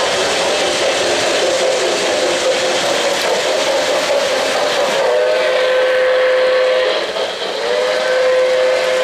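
Lionel O-gauge model trains rolling on three-rail track with a steady rumble of wheels, and the locomotive's Railsounds steam whistle blowing two long blasts in the second half, each sliding up into a steady tone.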